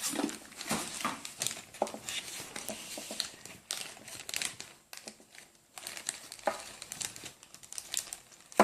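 Plastic packaging crinkling and rustling as small parts are unwrapped by hand, with scattered light clicks and a sharp tap near the end.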